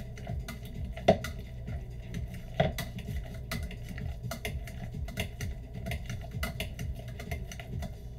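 Hand potato masher mashing purple potatoes in a stainless steel pot: a steady run of quick metal taps and knocks against the pot, a few a second, with two sharper knocks about one and two and a half seconds in.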